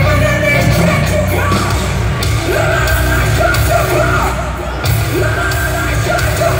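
Live heavy metal band playing loudly, with distorted guitar, pounding bass and drums under a sung and yelled vocal, heard from the audience.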